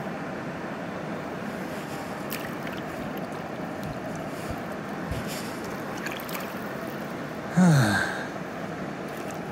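Steady rush of moving river water. About three-quarters of the way through, a short breathy vocal sound from a man falls in pitch, like a sigh or grunt, and is the loudest thing heard.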